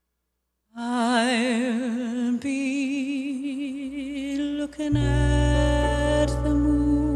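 A woman singing long held notes with wide vibrato, starting a little under a second in, with light band accompaniment; about five seconds in a deep bass comes in under the voice.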